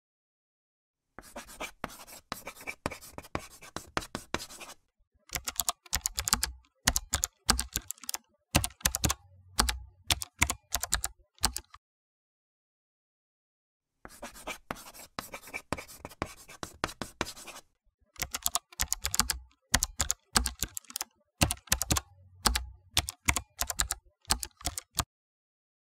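Computer keyboard typing: fast runs of keystrokes. It starts about a second in, stops dead for about two seconds midway, then resumes and stops shortly before the end.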